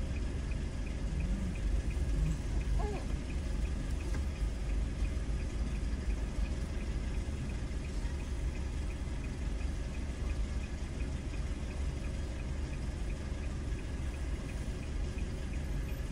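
Steady low hum inside a stopped car's cabin, with a faint, regular ticking about twice a second.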